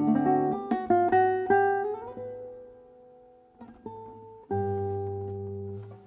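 1913 Hermann Hauser I classical guitar played solo: a quick run of plucked notes climbs to a held note that rings out and fades. After a short pause, a single note sounds, then a full chord rings on and dies away near the end.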